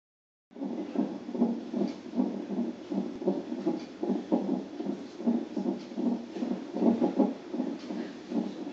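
Handheld fetal Doppler at 38 weeks playing the baby's heartbeat as a fast, even whooshing pulse of about two and a half beats a second, with the baby's hiccups coming through as fainter knocks every couple of seconds. The sound starts about half a second in.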